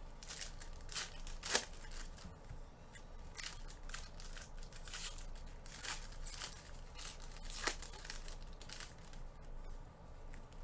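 Foil trading-card pack wrappers being torn open and crumpled by hand: a run of short, sharp rips and crinkles, the loudest about a second and a half in and near eight seconds.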